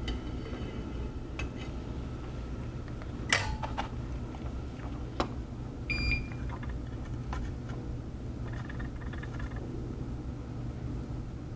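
Steady low hum of electronics-repair bench equipment, with a few small sharp clicks and taps of tools and one short electronic beep about six seconds in, as the soldering iron and solder are brought out.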